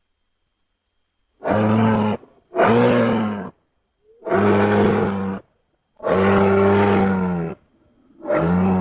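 Low, pitched roars from a dinosaur sound effect made for the ankylosaur Tarchia: four calls, each about a second long with short gaps between, and a fifth starting near the end.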